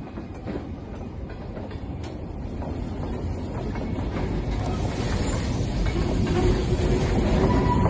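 Freight train of covered hopper cars rolling through a grade crossing behind an EMD GP7 locomotive, wheels clacking over the rail joints. The rumble grows steadily louder.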